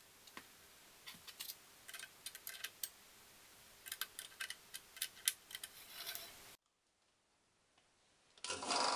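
Scattered small clicks and taps of hands fitting and adjusting hardwood blade-guide blocks on a bandsaw's upper guide assembly. After a short silence, a steady faint hiss begins near the end.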